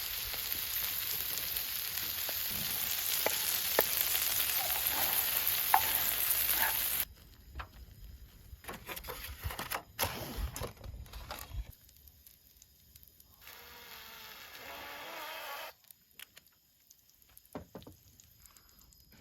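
Steady sizzling hiss of food frying, which stops abruptly about seven seconds in; afterwards only scattered faint clicks and handling noises.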